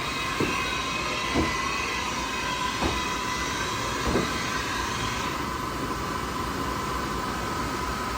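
Haas VF-6 vertical machining center running, a steady whine with a few short knocks in the first four seconds. About five seconds in a hiss stops and the whine steps up slightly in pitch.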